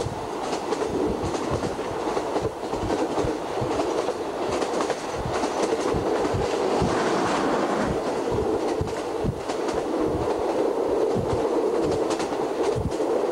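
State Railway of Thailand passenger train running on the rails, heard from aboard: a steady rumble with many irregular clacks of the wheels over the rail joints.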